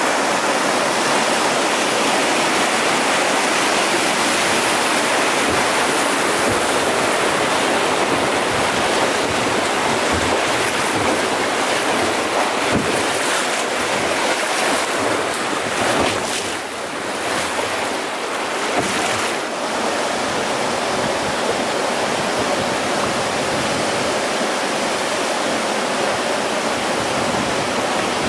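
Steady rushing of river whitewater rapids as a boat runs through them, with wind noise on the microphone.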